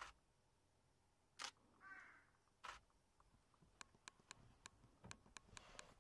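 Camera shutter clicks: single sharp clicks, then a run of about ten quick clicks in the second half, with one short harsh bird call about two seconds in.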